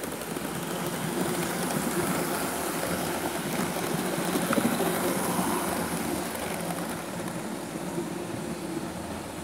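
A train passing close by: a steady rumble that swells to its loudest about halfway through, then fades away.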